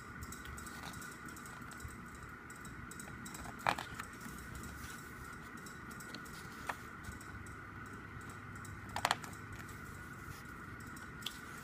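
Quiet handling of a K-pop album's photo book: a few short, sharp clicks as pages are flicked and handled, the clearest about a third of the way in and again near the three-quarter mark, over a faint steady hum.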